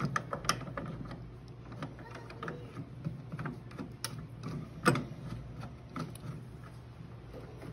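Black plastic handles being screwed by hand onto a soft-serve ice cream machine: irregular plastic clicks and ticks as the threads turn and the parts knock together. A sharper knock comes about five seconds in.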